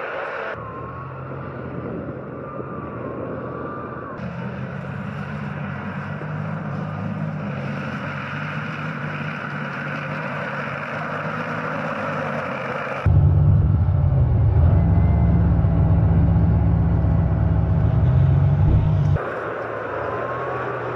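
Diesel engines of tracked self-propelled guns running steadily, across several cut-together shots. For about six seconds in the second half the engine noise is much louder and deeper.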